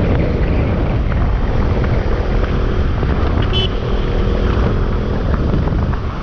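Motorcycle riding at a steady pace on the road: engine and riding noise running evenly throughout.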